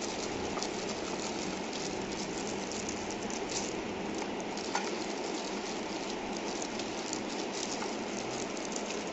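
Steady rain falling, an even hiss with a few faint ticks.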